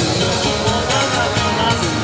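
Upbeat song playing, with a steady drum beat and a gliding melody line.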